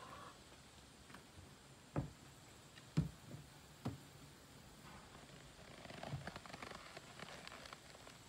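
Three dull thumps, about a second apart, of a person's boots stepping up onto a hollow plastic mounting block, followed a few seconds later by scattered soft clicks and rustling as the rider swings up into a western saddle on a horse.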